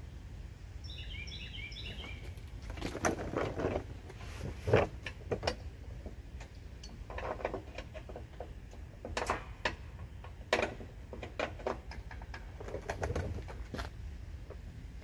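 Scattered clinks and knocks of tools and metal as a drive-belt tension spring is worked onto a riding mower's belt tensioner from underneath. A bird chirps in a short quick series about a second in, over a steady low rumble of wind on the microphone.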